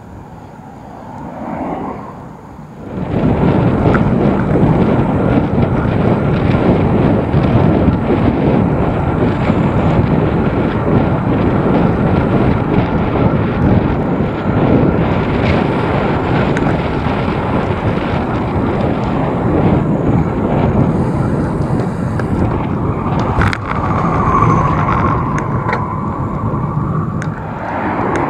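Wind rushing over the camera microphone of a road bike ridden at speed. It rises sharply about three seconds in and then stays loud and steady.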